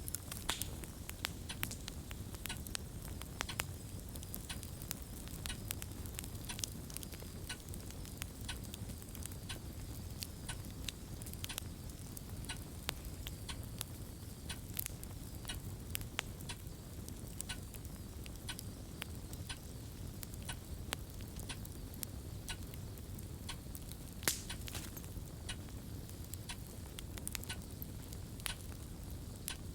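Fireplace crackling: irregular sharp pops and snaps over a low steady rumble, with one louder pop about 24 seconds in.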